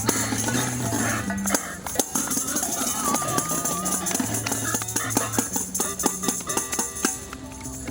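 Live music: a low bass line moving between held notes, with shaken percussion clicking and rattling over it and a wavering high tone about three seconds in.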